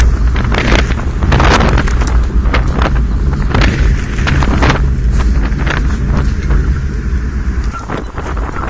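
Wind buffeting the microphone as it moves, over a steady low rumble with irregular knocks and jolts from a pet trailer rolling along a paved street.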